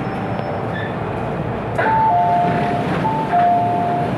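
MTR M-Train door-closing chime: a two-note descending chime, higher note then a longer lower note, sounding twice in a row over a steady hum of train and platform noise, warning that the doors are about to close.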